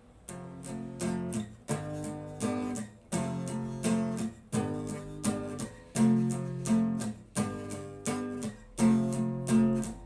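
Guitar strumming chords in a steady, repeating rhythm: the instrumental opening of a song, with no singing yet.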